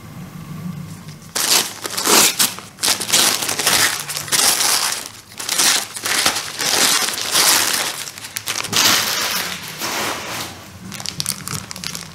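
White paper wrapping crinkling and rustling as gloved hands unwrap a potted orchid. It starts about a second and a half in and goes on as a dense run of crackles.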